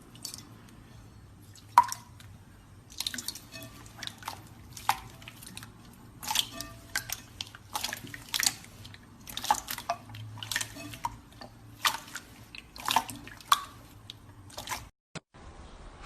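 Slime being pressed and squeezed, popping and clicking wetly in an irregular run of sharp little pops, about one or two a second.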